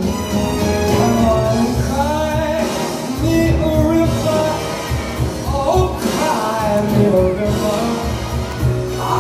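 Music with a singing voice over a pulsing bass line.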